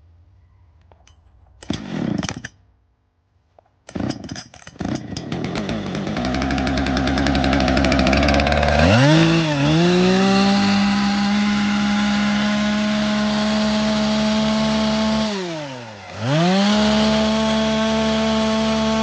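Two-stroke gas chainsaw engine pull-started: a short cord pull about two seconds in, then it catches and runs up to a loud, steady high-rev scream. Its revs dip and recover about nine seconds in, then fall away and climb back near the end. It measures up to 110 decibels.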